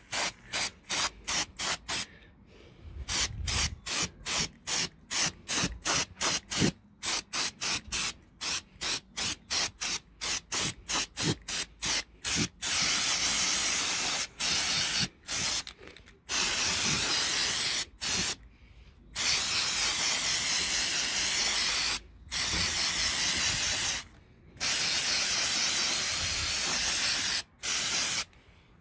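Aerosol spray paint can spraying in short quick bursts, about three a second, for the first twelve seconds or so, then in longer sprays lasting one to four seconds, stopping and starting.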